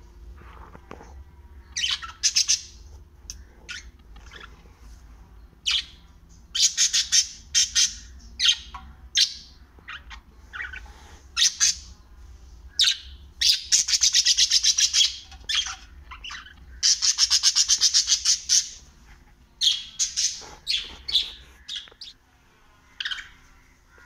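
Small pet parrots calling: many short, sharp chirps and squawks, with two long runs of rapid, buzzy chattering near the middle.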